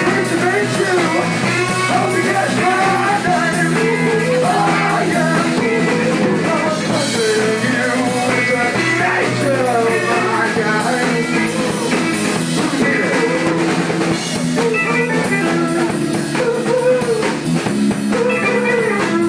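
Live rock band playing, with a singer over drum kit and guitar.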